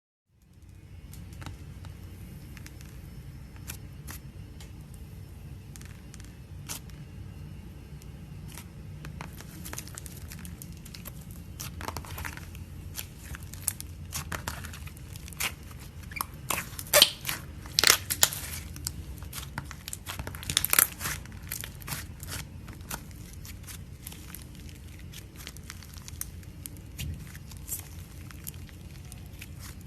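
Slime being squeezed and crushed by hands, giving a run of crackling, crunchy pops that grows denser and louder in the middle before easing off. A faint low hum sits underneath.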